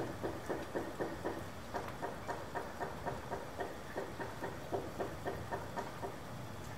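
Rain ambience: a steady low rumble and hiss under a regular, dull tapping about four times a second.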